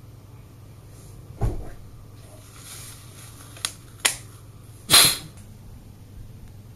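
A few soft handling knocks and two sharp clicks, then about five seconds in a short, sharp blast of air through the nose: the mother's kiss manoeuvre, forcing a foreign body out of a nostril.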